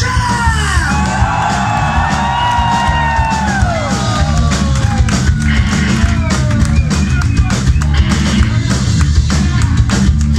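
Rock band playing live at full volume: steady drums and bass with electric guitar. High notes slide down in pitch during the first few seconds.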